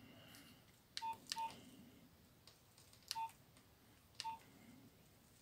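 Keypad beeps from a Nokia mobile phone as its buttons are pressed to move through the menus: four short, same-pitched beeps with key clicks, two close together about a second in, then one after about three seconds and one after four.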